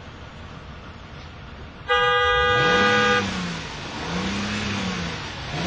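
Steady car noise, then about two seconds in a car horn sounds one loud, long blast lasting just over a second. After it a low note rises and falls in pitch three times.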